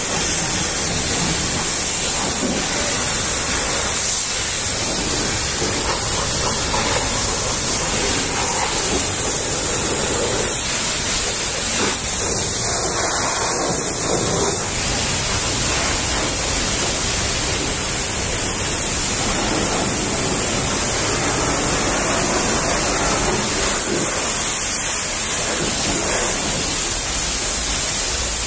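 High-pressure washer lance spraying water onto a truck cab's panels and wheel: a steady, loud hiss, brightest in the high range.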